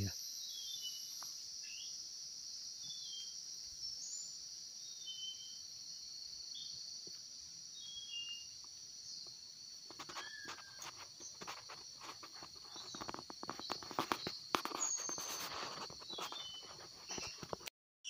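Forest ambience: a steady high-pitched insect drone with a small bird's short, falling chirps repeating about once a second. From about ten seconds in, crackling and rustling of leaves and handling join in and become the loudest sound.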